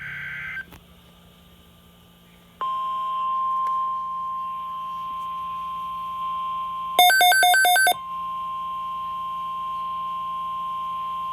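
The end of an Emergency Alert System digital header burst, then, about two and a half seconds in, the steady NOAA Weather Radio 1050 Hz alert tone, held for about nine seconds. About seven seconds in, a louder run of about five rapid electronic beeps cuts across the tone for just under a second.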